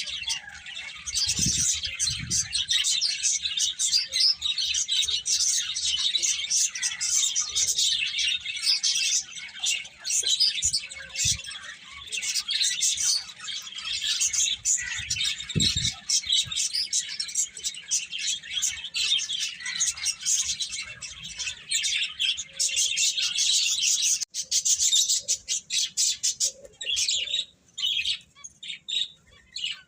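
Many small birds chirping and twittering at once, a dense overlapping chatter that thins to scattered chirps in the last few seconds. A few soft low thumps come through early on and around the middle.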